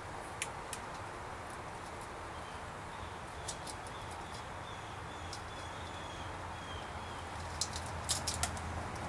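Wire stripper clicking as it strips insulation off thin wires: two or three sharp clicks near the start, one in the middle, and a quick cluster near the end, over a steady background hiss and hum.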